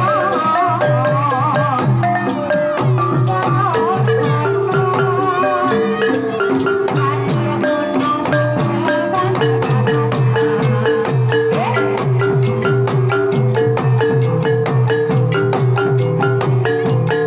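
Javanese gamelan playing a Banyumasan tayub gending: mallet-struck bronze keyed instruments and small kettle gongs ring out a steady melody over regular kendang hand-drum strokes. A singer's wavering, ornamented voice rides over the ensemble in the first few seconds.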